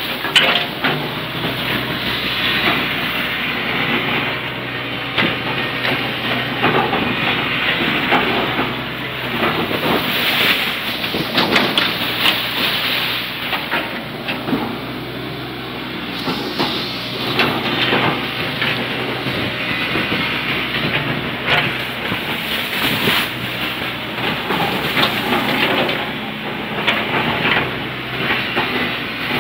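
Kobelco excavator's diesel engine running steadily under hydraulic load while its arm and bucket paddle through the sea, with constant churning and splashing of water as the barge is pushed along.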